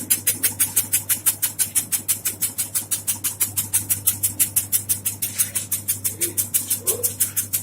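Automatic tobacco-shredding machine running, its cutting blade chopping in a fast, even rhythm of about six or seven strokes a second over a steady motor hum.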